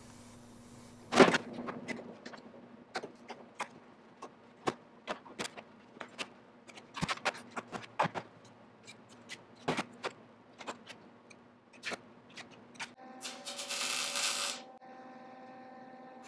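Sheet-metal patch panel being handled and fitted into a Jeep body tub: scattered metal clicks and knocks, the loudest about a second in. About 13 seconds in, a MIG welder's arc runs for about two seconds, a plug weld, and a steady hum from the welder carries on after it.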